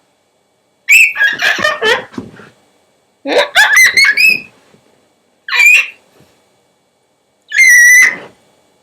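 A person whistling with the throat, mouth closed: four short bursts of squeaky, cartoony pitched sound that slides up and down, with pauses between.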